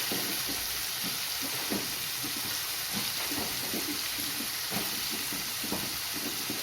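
Small chicken pieces sizzling as they fry in oil in a pan, with irregular short scrapes and knocks of a spoon stirring them.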